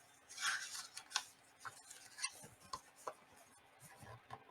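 A paperback picture book's page being turned and handled: a short, faint paper swish about half a second in, followed by scattered soft clicks and taps.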